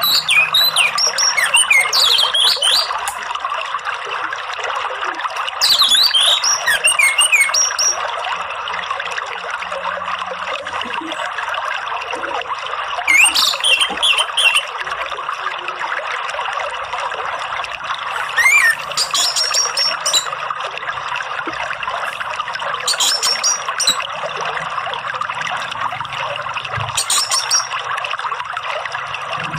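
Running water trickling steadily, with short spells of high, sweeping bird chirps and whistles every few seconds.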